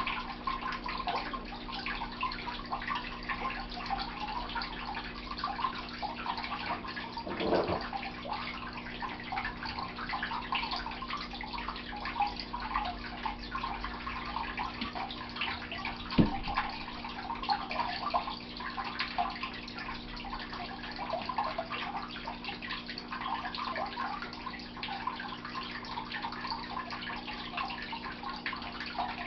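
Water trickling steadily over a constant low hum, with a single sharp knock about two-thirds of the way through.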